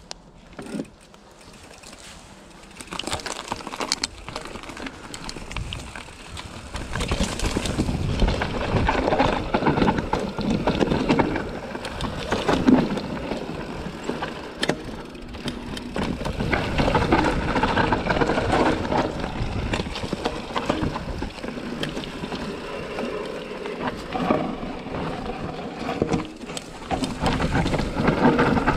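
Transition Sentinel full-suspension mountain bike riding down a dirt forest trail: tyres rolling over dirt and roots, with many small knocks and rattles from the bike. Low for the first couple of seconds, then the noise builds as it picks up speed.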